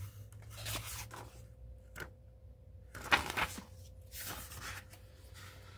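Paper pages of a picture book being handled and turned: a few soft rustling swishes, the loudest about three seconds in.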